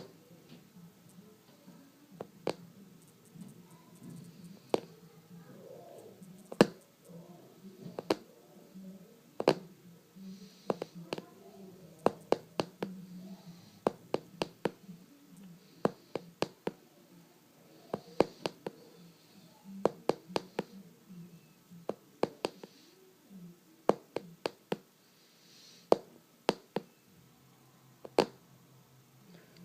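Sharp taps and clicks at irregular intervals, some coming in quick clusters, made by hands, as in ASMR tapping, over a soft low murmur.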